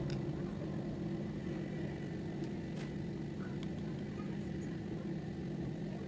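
Steady low machine hum, with a few faint ticks.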